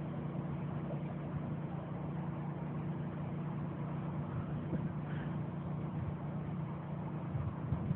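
A steady, even, low engine hum with no change in pitch.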